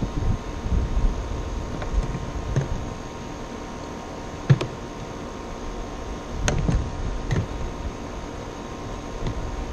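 Cowling of a Mercury 60 hp four-stroke outboard being fitted back into place: a few sharp knocks and clicks, the loudest about halfway through and several more close together a little later, over a steady background hiss.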